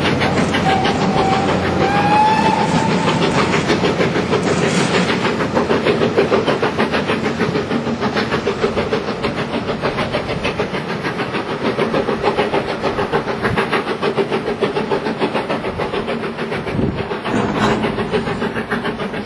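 Steam-hauled passenger train heard from one of its own coaches: the locomotive's whistle sounds about a second in, rising slightly in pitch for about two seconds. After it comes steady running noise with a fast, even beat.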